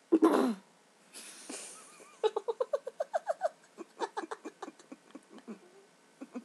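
One loud, harsh cough, then a breathy wheeze, then a run of quick giggling laughter, about five bursts a second, rising in pitch at first.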